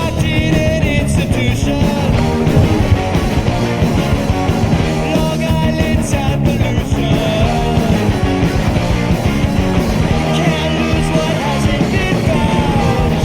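Rock music with electric guitar, loud and continuous.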